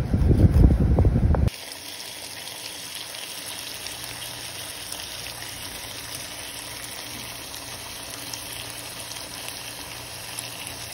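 For about the first second and a half, a knife chopping cooked bacon on a wooden cutting board, loud and low with thuds. Then seasoned chicken breasts frying in olive oil in a pan: a steady sizzle with small crackles.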